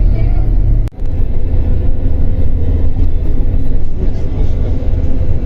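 Steady low rumble of a moving vehicle heard from inside, briefly dropping out about a second in.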